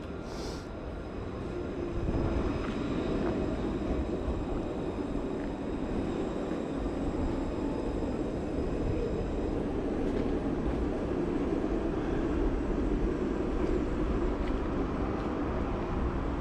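A tram passing close by: a steady low rumble of wheels on rail and motors that swells about two seconds in and holds. A brief hiss sounds right at the start.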